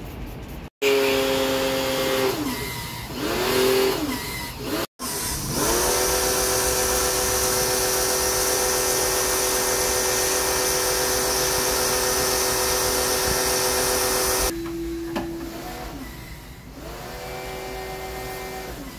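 Electric pressure washer running: a steady motor whine with the hiss of its water jet spraying an air-conditioner coil. The motor's pitch drops and climbs back a few times, with abrupt cuts in the sound near the start.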